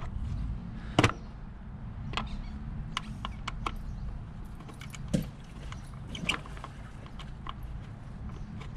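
Scattered clicks and knocks of motorcycle plastic trim and its fasteners being worked loose by hand, the loudest about a second in, over a steady low hum.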